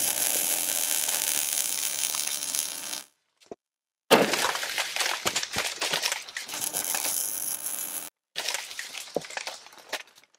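Sound effects for an animated logo intro: a steady rushing hiss that stops about three seconds in, then after a brief gap a sharp hit about four seconds in, followed by a dense scatter of crackles and clicks that thins out toward the end.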